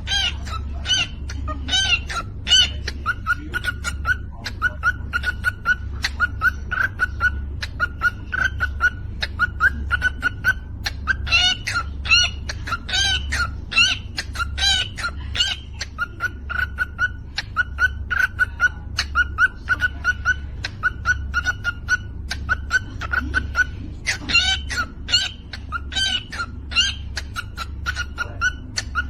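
A bird chirping steadily, a long run of short, sharp calls about two to three a second, some sweeping up and down in pitch.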